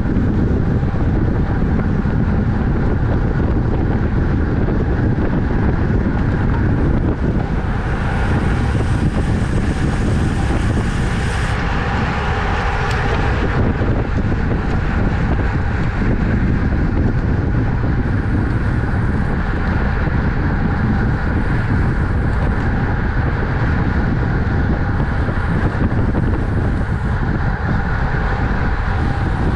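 Wind rushing over a race bike's onboard camera microphone at racing speed: a loud, steady rush with little change throughout.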